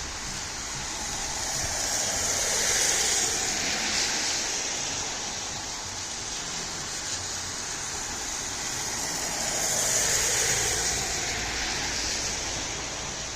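Road traffic: two vehicles pass by, their tyre and engine noise swelling and fading, loudest about three seconds in and again about ten seconds in.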